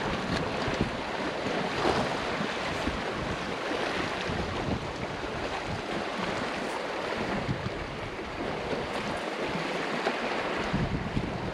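Sea washing against the rocks below, with wind buffeting the microphone: a steady rushing noise.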